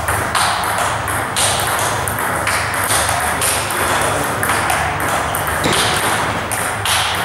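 Table tennis rally: the ball clicking off the bats and bouncing on the table in a quick, even run of about three hits a second.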